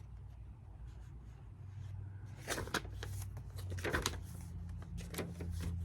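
Scrapbook pages being turned by hand, with several short paper rustles in the second half over a steady low hum.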